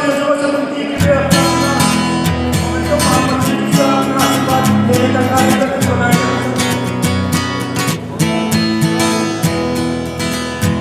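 Music with strummed guitar and a steady beat; a bass line comes in about a second in.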